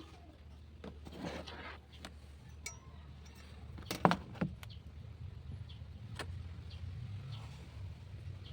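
Workshop handling noises: scattered clicks and knocks, the loudest a sharp knock about four seconds in, over a low steady hum.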